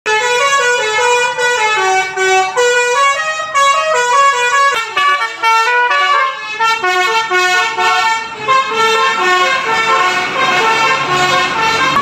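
Indonesian bus 'telolet' horns, a bank of tuned multi-trumpet air horns, playing a quick melody of short stepped notes, several pitches sounding together. The tune breaks briefly about five seconds in, then goes on.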